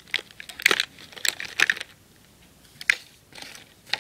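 A present's packaging being handled and opened by hand: irregular crinkling and rustling with small clicks, a pause about halfway, then one sharp click and more rustling near the end.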